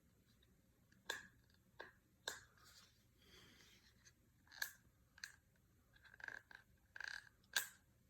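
Faint handling noise: a dozen or so light clicks and taps of small objects being picked up and set down, busier near the end, with a soft rustle in the middle.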